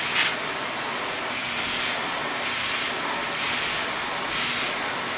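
Samsung household vacuum cleaner running with a steady high whine, with a rush of air about once a second as the nozzle is drawn over a horse's coat.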